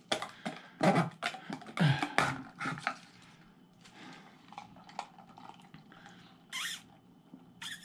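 Thin plastic takeaway bag rustling and packaging being handled, a quick run of crackles and knocks over the first three seconds, then scattered lighter clicks. A short slurp through a straw from a plastic cup comes about six and a half seconds in.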